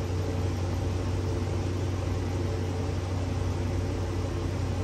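Steady low mechanical hum with a constant hiss, unchanging throughout.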